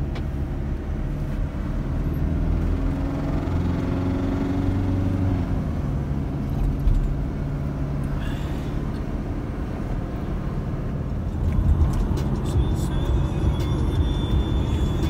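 Road and engine noise inside the cabin of a Mercedes Sprinter passenger van cruising on the highway: a steady low rumble.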